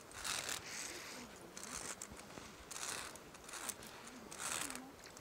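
Soft rustling bursts about once a second: handling noise from the hand and clothing rubbing against the phone's microphone while walking.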